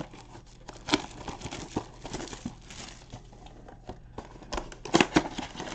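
Hands opening a cardboard trading-card blaster box and pulling out the plastic-wrapped packs: crinkling and rustling, with scattered sharp taps that are loudest near the end.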